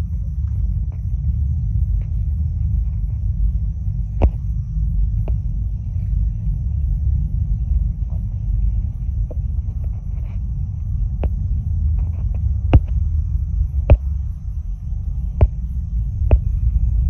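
Delta IV Heavy rocket's three RS-68A engines: a steady deep rumble with sharp cracks every second or two.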